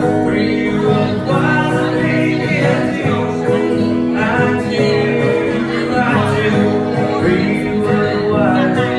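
Acoustic guitar playing chords with a voice singing over it: a live song.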